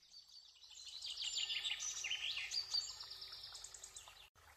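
Small birds chirping and trilling, several rapid high-pitched songs overlapping. The sound cuts out for a moment near the end.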